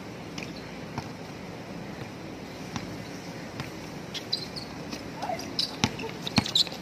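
Basketball game on a hard court: sneakers squeak in short bursts in the second half, and a basketball bounces sharply twice near the end.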